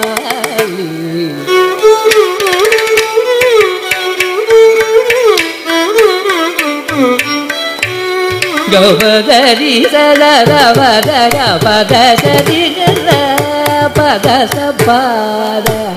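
Carnatic classical music in raga Mohanam, Adi talam: a melody line full of sliding ornaments over a steady run of hand-drum strokes. About halfway through, the melody becomes busier and denser.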